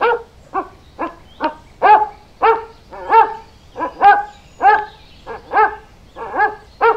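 Dog barking repeatedly, about fifteen short barks at roughly two a second, each bark rising and falling slightly in pitch.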